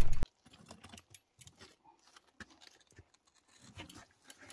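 A loud rush of wind on the microphone cuts off abruptly a quarter-second in. Then come faint scattered scuffs, clicks and crunches of shoes on gritty sandstone as a heavily loaded gravel bike is pushed over rocks, a little louder near the end.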